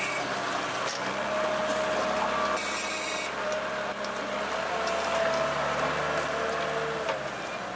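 Diesel engine of a JCB compact backhoe loader running while it works, with a wavering whine over the low engine drone. A short hiss sounds about three seconds in.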